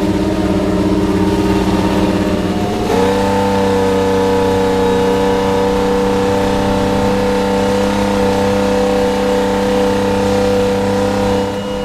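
Ferrari Formula 1 1.6-litre turbo-hybrid V6 engine running at a steady, even note that steps up slightly about three seconds in and then holds.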